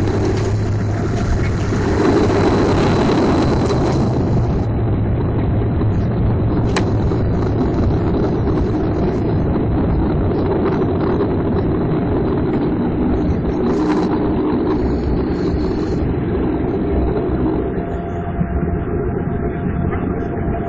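Airliner cabin noise on the landing roll, heard at a window over the main landing gear: a steady engine and rushing noise from the aircraft rolling down the runway. It swells briefly about two seconds in and eases a little near the end.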